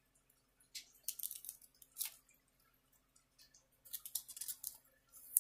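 Thin clear plastic crinkling and rustling in several short bursts as trading cards are handled.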